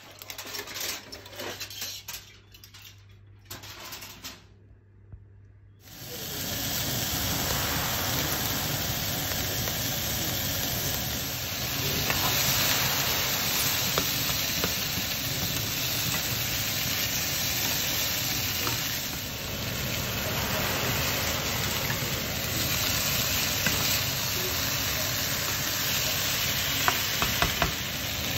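Potato cubes, carrots, onion and green beans sizzling in oil in a frying pan, with a few light clicks of stirring. The sizzling starts abruptly about six seconds in, after a quieter, uneven stretch.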